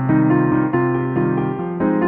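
Background music: a piano piece, its notes and chords changing several times a second.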